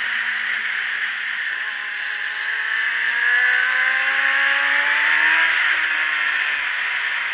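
Onboard sound of a sport motorcycle's engine at speed under heavy wind rush on the camera's microphone. The engine's pitch climbs steadily from about two seconds in and falls away about five and a half seconds in.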